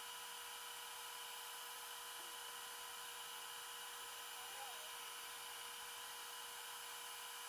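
Laser cutter running while it cuts a living-hinge pattern into 1/8-inch Baltic birch plywood: a steady hiss with a few steady tones, played back sped up.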